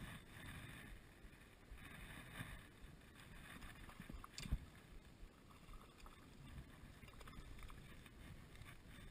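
Faint water sounds around an angler wading in very shallow water, with soft swishes as the fly line is cast and handled. There is one short knock about four and a half seconds in.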